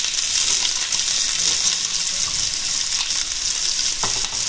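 Chopped onion sizzling steadily in hot oil with cumin and mustard seeds in a frying pan, with one light knock near the end.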